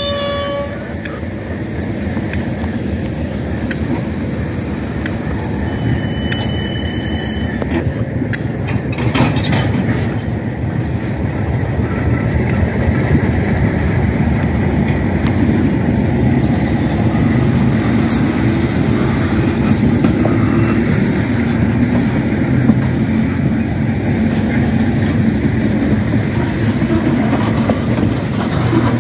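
Freight cars of a slow train rolling past: a steady rumble of wheels on rail that grows louder over the first dozen seconds, with a few sharp knocks and a brief high-pitched tone partway through.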